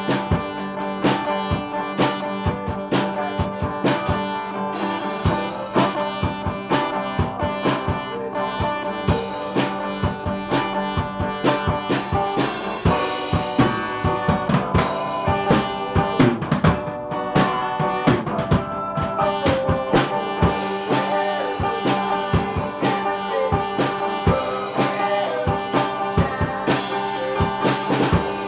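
Music played on drum kit and guitar, with a steady beat of drum hits under sustained guitar notes.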